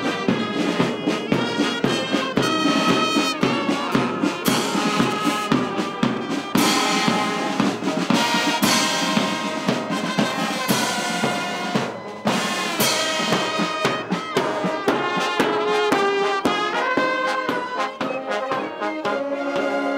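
Marching brass band playing: brass instruments carry the tune over a steady beat of snare drums, bass drum and cymbals.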